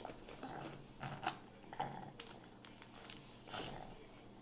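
Faint, scattered rustles and small clicks of a baby mouthing and chewing on a plastic-lined feeding bib.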